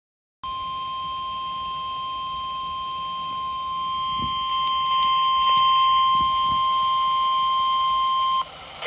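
NOAA Weather Radio 1050 Hz warning alarm tone sounding for an Emergency Alert System broadcast: one steady, unbroken beep held for about eight seconds. It grows somewhat louder midway and cuts off abruptly near the end.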